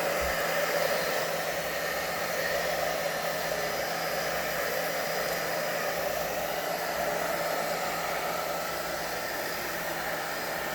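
Hair dryer running steadily, blowing warm air to dry a freshly bathed Silkie chicken's feathers. It is a constant rush of air with a steady motor hum.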